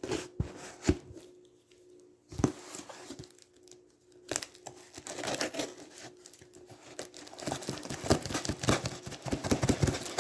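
Shipping package being opened by hand: a few scattered taps and rustles at first, then from about four seconds in a dense run of packaging tearing and crinkling.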